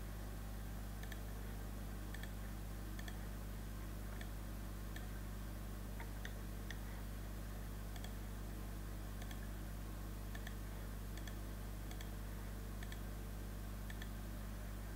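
Computer mouse clicking, a light click about once a second, over a steady low electrical hum.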